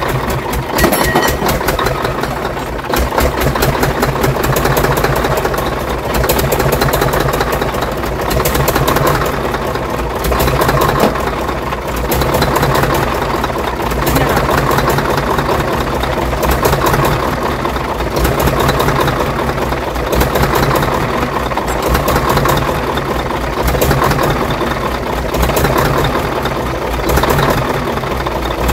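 Scania V8 diesel truck engine running at idle, with its level swelling and easing about every two seconds.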